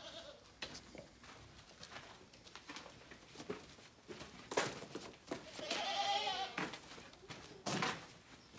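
A goat bleats once, a long wavering call about six seconds in. Sharp knocks come before and after it, the loudest just before the bleat.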